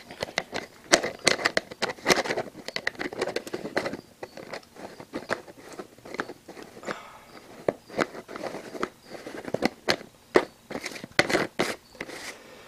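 Handling noise: fabric rubbing and brushing against the camera's microphone as it is carried, heard as irregular crackling and rustling.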